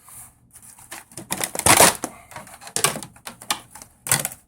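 Irregular clicks and rattles of small hard objects being handled, a battery charger cable with its plastic connectors being picked out, loudest about two seconds in and once more near the end.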